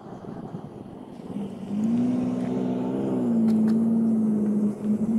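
A motor engine running steadily, coming in about a second and a half in. Its pitch steps up a little, then settles slightly lower, over wind noise on the microphone.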